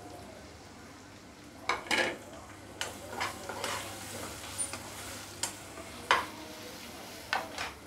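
Metal spatula stirring potato pieces through spiced oil in a kadhai, with a faint frying sizzle and a string of sharp scrapes and knocks of the spatula against the pan, the loudest about two and six seconds in.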